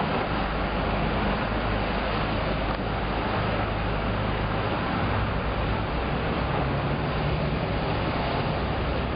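Steady rumble of motor engines and traffic, with a low engine hum that shifts in pitch about halfway through.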